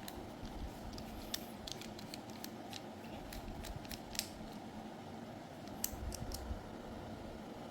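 Small sharp clicks and scrapes of a BL22 hair trimmer's blade and housing being handled and pried at while trying to remove the blade. They come irregularly, with a cluster of three about six seconds in.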